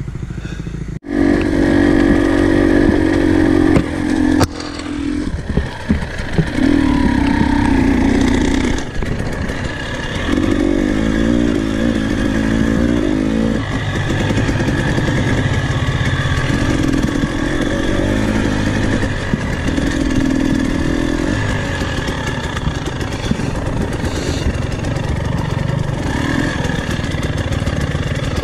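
Dirt bike engine running under the rider, revving in repeated bursts of throttle a few seconds apart, then running more evenly near the end.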